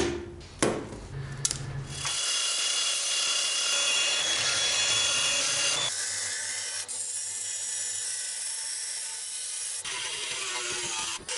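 A few sharp hammer blows on a pin punch, driving the pins out of a knife handle. Then steady abrasive grinding of the steel blade, first on a belt grinder, and from about ten seconds in with a hand-held rotary tool fitted with a cone-shaped grinding stone.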